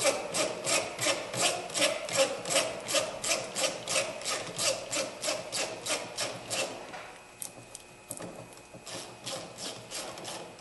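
Ratchet wrench being worked in quick, even strokes, about four to five a second, tightening the clamp on the air intake tube. The ratcheting stops about seven seconds in, leaving a few light clicks.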